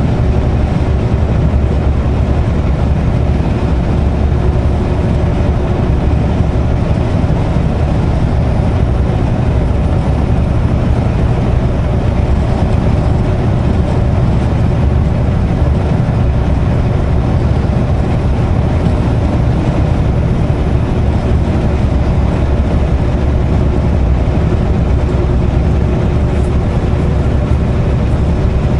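Semi truck's diesel engine running with a steady low drone that does not change.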